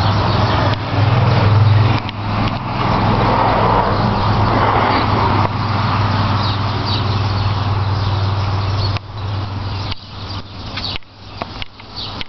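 A motor vehicle's engine running, a steady low hum under a broad rushing noise, which falls away about nine seconds in, leaving a few short knocks.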